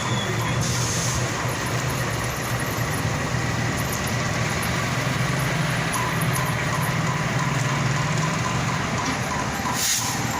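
A large diesel engine running steadily with a low drone, and a short hiss near the end.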